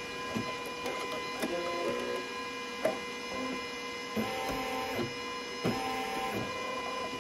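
Brother Innovis NV880E embroidery machine stitching: a steady mechanical whir, with short extra whirring tones coming in three times and scattered light clicks.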